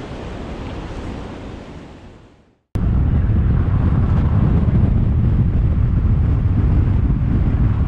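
Wind on the microphone and small waves washing on the shore, fading out over the first two and a half seconds. Then, after a sudden cut, the steady low rumble of a car driving along a road, engine and tyre noise.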